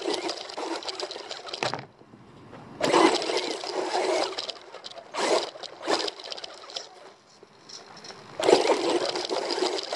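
Rear-wheel-drive RC car driving over dirt and grass, heard from its onboard camera: gritty tyre and drivetrain noise in several bursts of a second or two as it speeds up, eases off and moves off again, loudest near the end.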